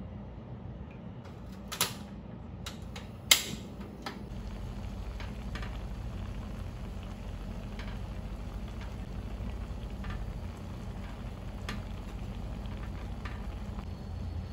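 Sukiyaki broth simmering in a pan on a portable gas stove: a steady low rumble with faint ticks, broken by two sharp knocks about two and three seconds in, the second louder.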